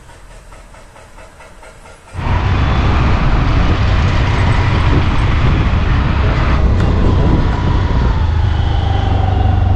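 Riding a motorbike or scooter: loud wind buffeting on the helmet-mounted microphone, with engine and road noise. It starts suddenly about two seconds in, after a quieter stretch.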